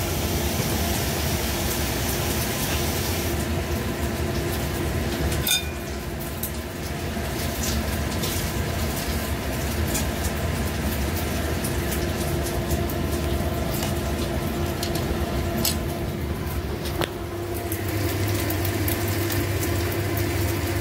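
Steady mechanical hum over a low rumble, with a few light clicks of a spatula stirring in a frying pan.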